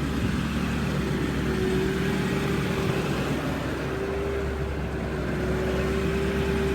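Ford 6.4 Power Stroke V8 turbo-diesel running steadily, driving an under-hood VMAC air compressor that has just built to 130 psi: a steady low hum with a steady whine over it.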